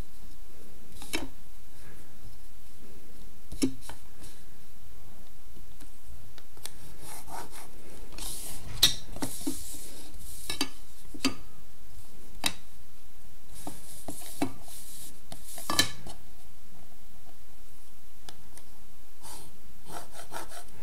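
Plastic set square being set down and slid across drawing paper, with scattered sharp clicks as it is repositioned and a few pencil strokes along its edge.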